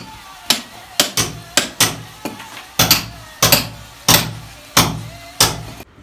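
Hammer striking a chisel into a brick wall, about a dozen sharp strikes at an uneven pace of roughly two a second: cutting a channel in the brickwork for electrical wiring.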